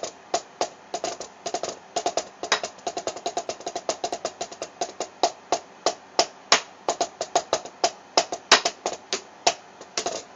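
Drumsticks striking a Donner DTB-1S silicone practice drum pad in quick, uneven strokes, several a second, some accented louder, each a sharp tap with a short, slightly pitched ring.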